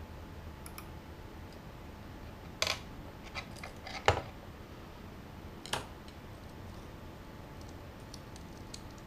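A few sharp clicks and taps of small metal hand tools, tweezers and needle-nose pliers, handled against a plastic model base. The loudest come about two and a half and four seconds in, another near six seconds, with fainter ticks later.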